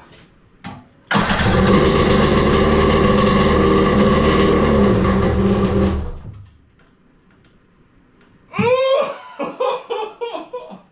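Jet-ski engine installed in a small jet boat hull firing on its first start, catching suddenly and running at a steady speed for about five seconds before dying away. It is running on sprayed brake cleaner with no fuel tank connected.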